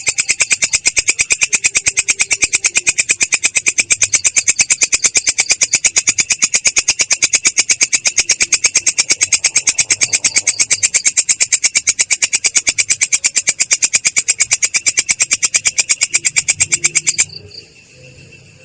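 Singing insect stridulating: a loud, high-pitched, very regular rapid pulse train, about ten pulses a second, used as a training song for songbirds. It stops suddenly about 17 seconds in.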